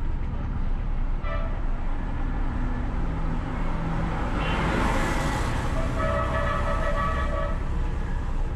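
Town street traffic heard from a moving car: steady engine and road rumble, a short horn toot about a second in, a rush of noise as a large tanker truck passes close about halfway through, and a longer horn honk lasting over a second near the end.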